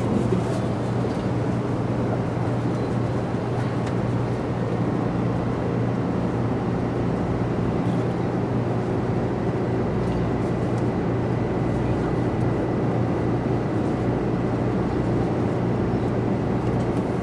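Steady running noise inside a 300 series Shinkansen carriage at speed: an even rush of noise over a low hum, with a faint high steady tone.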